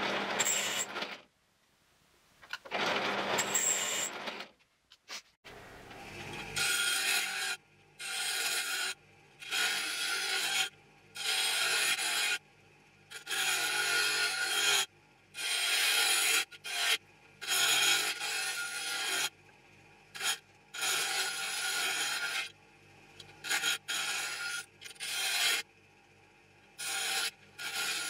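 A drill press cuts into a steel part in two short bursts with a thin high squeal. Then a bench grinder hums steadily while a steel knife blade, cut from an old saw blade, is pressed to the wheel again and again in grinding passes of one to two seconds, about one every two seconds.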